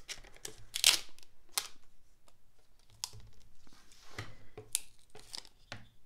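Clear Scotch packing tape being pulled off its roll and pressed onto foam board, in a series of short, uneven ripping pulls and crinkles, the loudest about a second in.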